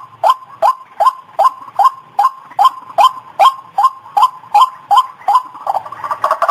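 White-breasted waterhen (ruak-ruak) calling. A sharp call is repeated about two and a half times a second, each one sweeping up to a steady pitch. Near the end the calls quicken and break up.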